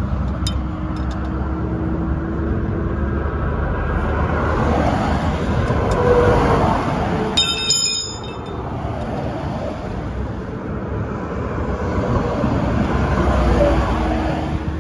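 Cargo van driving at road speed: steady road and engine noise. A brief high-pitched tone sounds once, a little past the middle.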